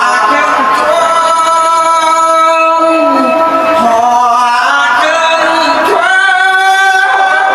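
A Buddhist monk singing a Thai sermon verse (klon) into a handheld microphone, in long drawn-out phrases that glide up and down in pitch.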